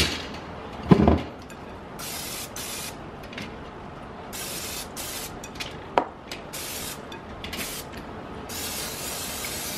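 Aerosol cooking-oil spray can hissing in several short bursts as oil is sprayed onto raw quail on a wire grill basket. A loud thump comes about a second in, and a sharp click near six seconds.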